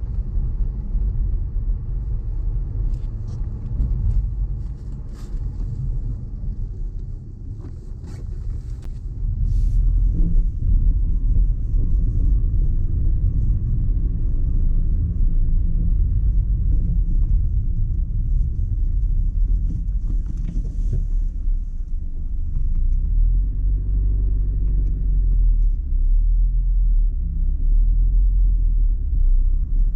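Car on the road: a steady low rumble of road and engine noise, getting louder about ten seconds in.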